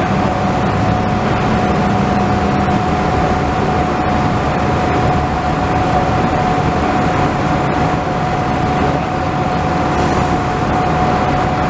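Steady drone of heavy machinery with a constant whine held at one pitch, running evenly without breaks.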